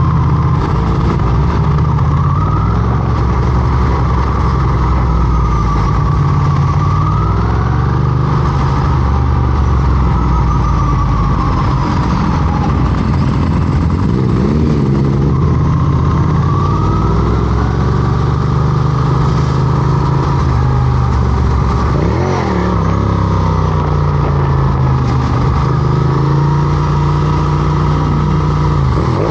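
Motorcycle engine running while riding, its pitch rising and falling with throttle changes, with several quick revs and sweeps.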